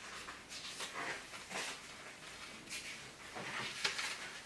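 Paper pages of a small booklet rustling as gloved hands leaf through them, in several irregular rustles, the loudest near the end.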